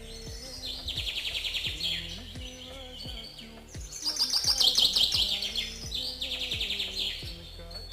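Birds singing in rapid trills, in three bursts, the loudest near the middle, over soft background music.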